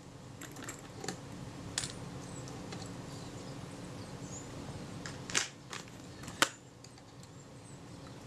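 A few sharp clicks and taps of small metal camera parts and tools being handled as a Kodak Retina IIIS body is dismantled, the loudest about six and a half seconds in, over faint room tone.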